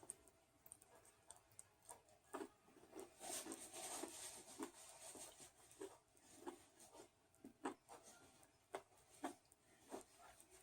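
Faint, irregular chewing and mouth sounds of a person eating, with a brief louder rustle about three seconds in.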